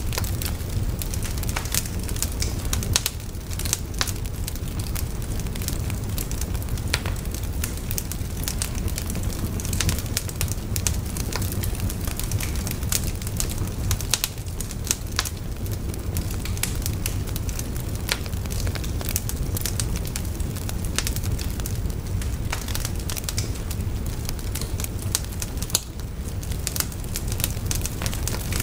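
Wood bonfire burning: frequent, irregular sharp crackles and pops from the burning wood over a steady low rumble.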